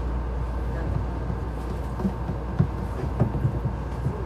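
Cabin noise of a Tama Monorail car running along its beam: a steady low rumble from the rubber-tyred train, with a few light knocks.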